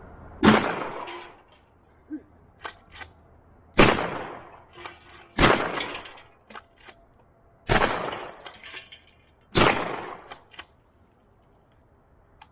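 Five gunshots fired one to three seconds apart, each followed by a short echo, with fainter clicks and knocks between the shots.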